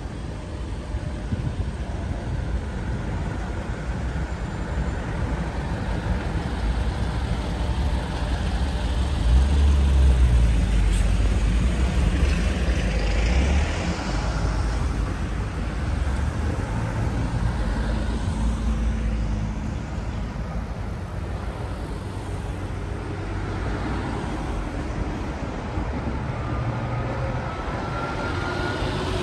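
Road traffic passing on a city street: cars, a coach bus and a truck driving by. A louder low rumble swells about ten seconds in as a heavy vehicle goes past close by.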